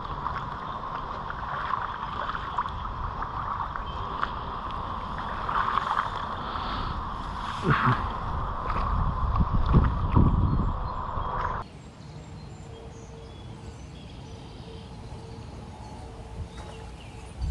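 Wind buffeting the microphone outdoors with a steady low rumble and a few louder gusts; it cuts off abruptly about twelve seconds in to a quieter, steadier background.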